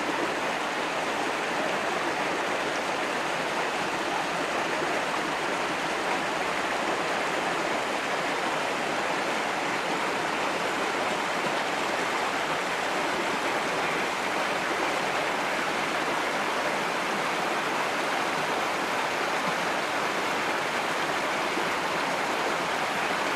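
Shallow rocky stream running: a steady rush of water over stones.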